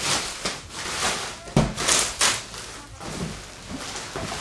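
Black plastic shipping film crinkling and rustling as a cardboard box is pulled out of it, with a thump of the box about one and a half seconds in.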